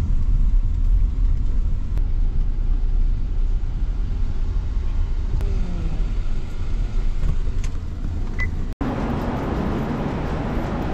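A vehicle's steady low rumble. About nine seconds in it cuts off abruptly to a different, hissier background noise.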